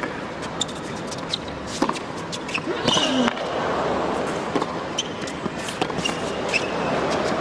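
Tennis rally on an indoor hard court: sharp ball strikes from rackets and bounces follow one another, with short high squeaks of shoes on the court between them, over a low hum from a quiet crowd.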